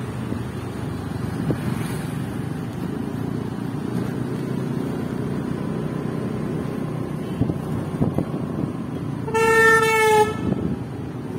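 Steady engine and road noise from driving, with a vehicle horn honking once for about a second near the end, the pitch sagging slightly.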